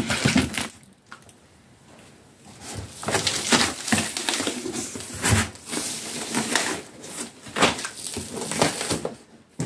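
Scissors slitting the packing tape along the seam of a cardboard shipping box, then the cardboard flaps being pulled open and the packing inside handled: scraping, rustling and knocks of cardboard, busiest in the second half.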